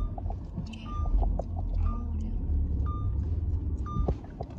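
Car cabin noise while driving: a steady low engine and road rumble, with a short electronic beep from the car repeating about once a second.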